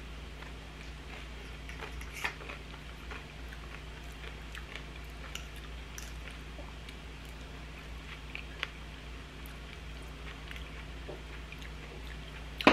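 Chewing on crunchy sesame rice-cracker nachos, with scattered small crunches and a couple of sharper clicks, over a steady low hum.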